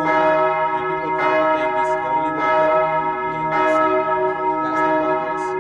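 Church bell ringing in a steady, even rhythm, struck about once a second, each stroke ringing on into the next.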